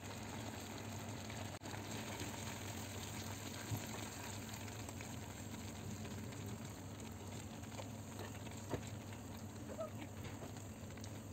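Spoon stirring spaghetti through a thick sauce in a steel pan, with two light knocks of the spoon against the pan, over a steady low hum and hiss.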